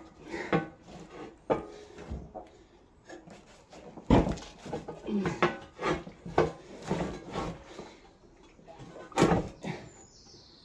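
Irregular knocks, clunks and scrapes of a Land Rover Defender fuel tank being worked into place against the chassis, with heavier clunks about four seconds in and again near the end.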